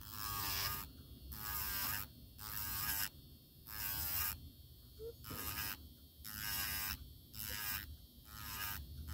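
Electric nail file (nail drill) running, its bit grinding lifted powder product off a fingernail in short strokes about once a second. Each stroke is a brief pitched whine with hiss, over the tool's steady low hum.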